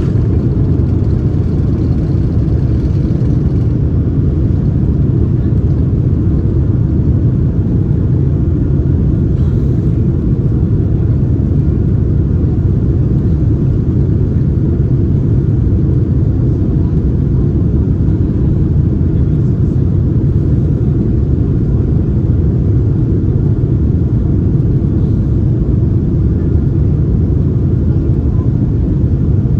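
Steady low rumble of a Boeing 787 Dreamliner's engines and rushing air, heard from inside the passenger cabin in flight.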